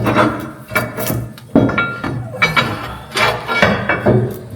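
Steel suspension parts knocking and clinking together in irregular metal-on-metal hits, some ringing briefly, as lift blocks and U-bolts are handled and fitted.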